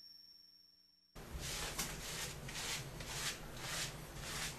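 Background music: after the last notes fade into a moment of silence, a new track opens with a scratchy, shaker-like percussion pulse about twice a second.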